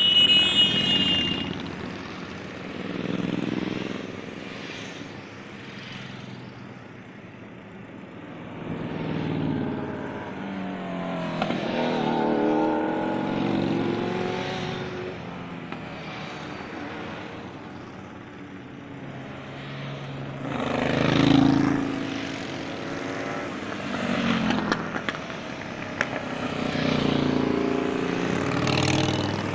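Motorcycles, many of them cruisers, riding past one after another, their engines swelling as each comes close and fading as it goes by. A horn toots briefly at the very start.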